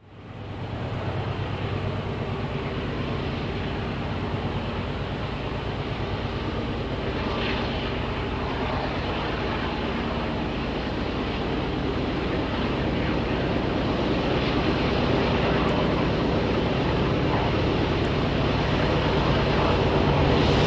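Diesel locomotive engines running, a steady drone with several held low tones, growing gradually louder as the train approaches.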